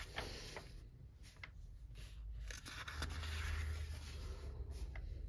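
Paper rustling as a page of a colouring book is turned and smoothed down by hand, with a sharp click as the page is lifted at the start.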